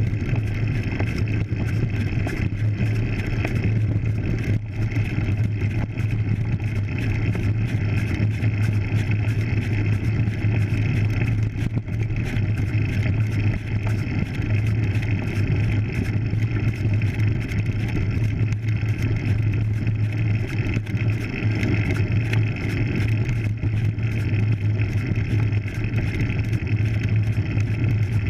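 Steady low rumble of road noise from a road bike climbing a dirt road, its tyres rolling on the packed earth and the frame's vibration picked up by the bike-mounted camera, with a fast, fine rattle.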